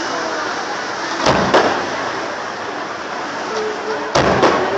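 Aerial fireworks shells bursting: two pairs of sharp bangs, one about a second and a half in and another near the end.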